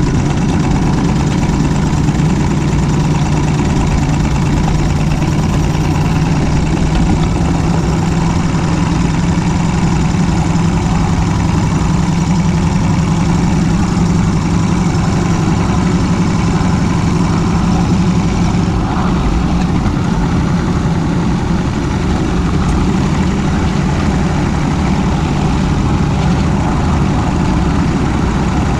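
Large-scale live steam locomotive running along the track, heard from on board: a steady mechanical running rumble with wheels on the rails.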